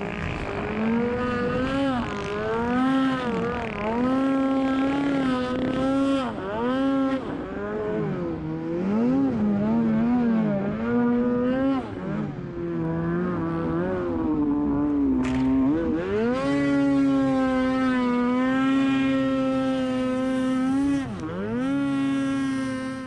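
Polaris AXYS RMK snowmobile's two-stroke engine revving up and down again and again under throttle while riding in deep snow. From about 16 seconds in it holds a steadier, higher pitch, dips once briefly near the end, then cuts off.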